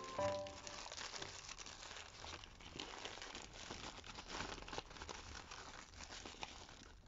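Zip-top plastic bag and paper towel crinkling and rustling as they are handled, the bag opened and filled, with many small irregular crackles.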